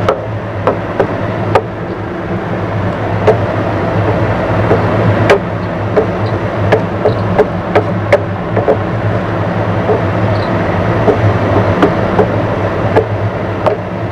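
Wooden spatula stirring and scraping a thick flour dough in a non-stick pan, with irregular sharp knocks against the pan, over a steady low hum. The dough is being cooked until it clumps and dries.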